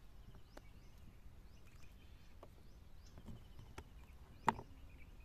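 Faint bird chirps repeating over a light outdoor hiss, with a few soft clicks as fingers pick pieces out of vegetable slices on a wooden cutting board; the sharpest click comes about four and a half seconds in.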